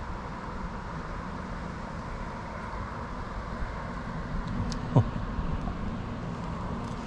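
Steady outdoor background noise with a low rumble like distant road traffic, and a brief sharp sound about five seconds in.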